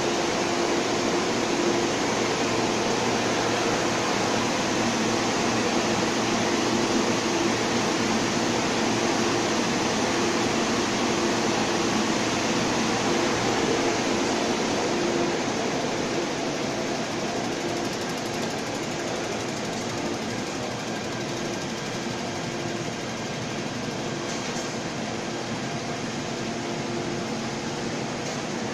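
Steady hum of an MTR train standing at an underground platform with its doors open, its air-conditioning and on-board equipment running, over the station's ventilation noise. It is a constant drone with a few steady tones and becomes a little quieter from about halfway through.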